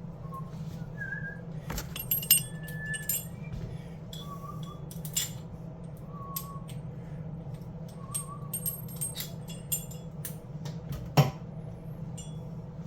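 Light metallic clinks and clicks of faucet parts and tools being handled, the two sharpest about two seconds in and near the end, with a few brief faint squeaks over a steady low hum.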